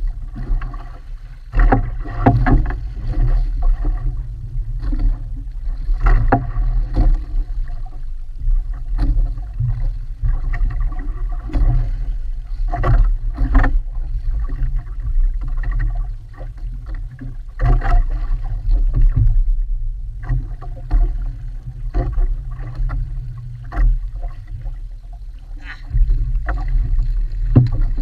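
Small canoe riding on choppy open sea: water slapping and knocking against the hull over a steady low rumble. Near the end there is splashing at the side of the boat as a fish is brought alongside.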